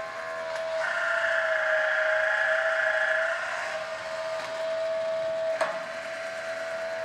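The motor of a Woodland Mills 12-volt automatic bandsaw blade sharpener whines steadily as its grinding disc spins while the disc is set to the face of a blade tooth. A higher whine joins about a second in and fades a couple of seconds later, and there is a sharp click near the end.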